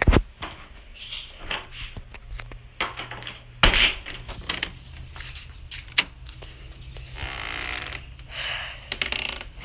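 Handling noise from a handheld phone being carried and moved about: scattered clicks, knocks and rubbing, with a louder thump about three and a half seconds in and a stretch of soft rustling near the end.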